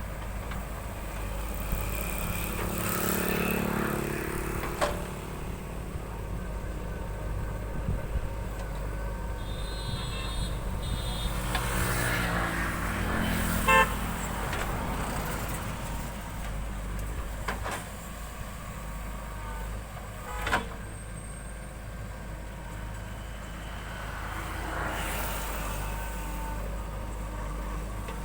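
JCB 3DX backhoe loader's diesel engine running steadily as it digs and loads soil, with its revs swelling and a few sharp knocks and clanks from the bucket and arm.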